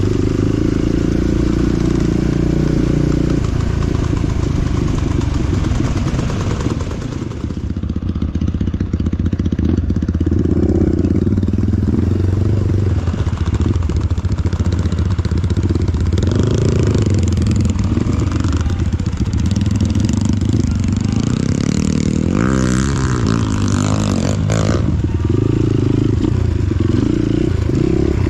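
Dirt-bike engine running under load, its pitch rising and falling with the throttle, with a run of quick revs about three-quarters of the way through.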